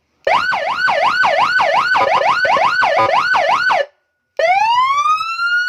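Senken six-tone electronic police escort siren sounding through its speaker. It starts with a fast warbling yelp, about three sweeps a second, that stops just before four seconds in. After a brief pause it switches to a slow wail that rises steadily.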